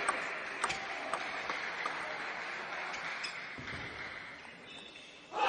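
Crowd noise and the tail of applause in a sports hall, fading slowly toward quiet, with a few faint sharp clicks scattered through it. A louder sound cuts in abruptly right at the end.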